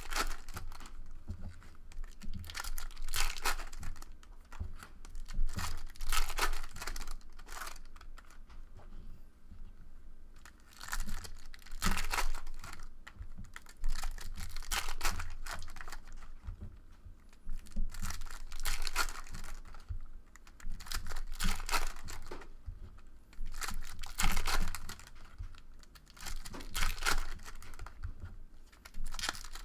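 Foil trading-card pack wrappers being torn open and crinkled by hand, in repeated rustling bursts every couple of seconds.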